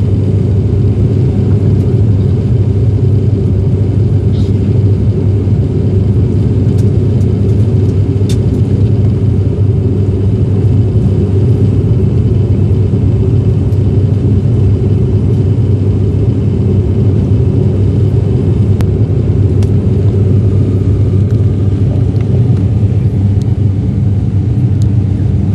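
Propeller airliner cabin noise in flight: the engines and propellers make a loud, steady low drone.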